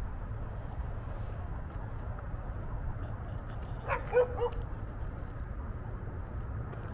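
A dog giving a couple of quick short barks about four seconds in, over a steady low outdoor rumble.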